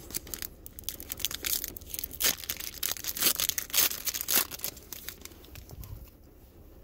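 A 2015 Score football card pack's shiny plastic wrapper being torn open and crinkled by hand: a run of crackling rustles that dies away about five to six seconds in.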